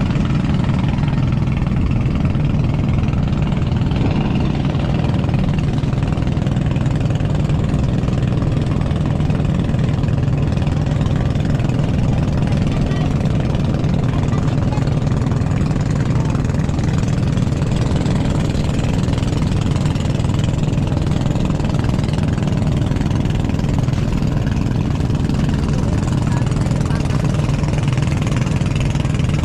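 Motorized outrigger boat's engine running at a steady drone, with the rush of choppy water around the hull.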